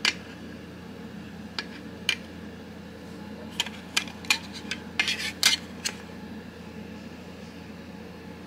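Small metal knife parts clinking and tapping against each other and the tray as they are handled during reassembly of a folding knife: a dozen or so light separate clicks, most of them bunched between about three and a half and six seconds in, over a faint steady hum.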